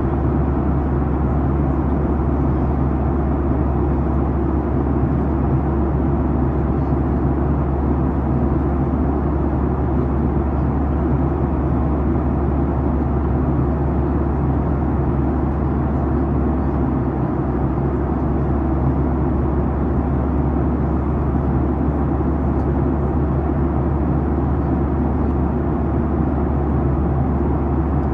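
Steady cabin noise of a Boeing 737-900ER at cruise: an even rush of airflow and engine drone from its CFM56-7B turbofans, strongest in the low range with a constant deep hum.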